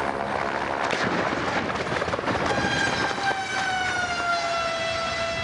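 Helicopter crashing: a loud rushing din broken by several sharp clattering impacts. About two and a half seconds in, a steady high-pitched tone sets in, slides down a little and then holds.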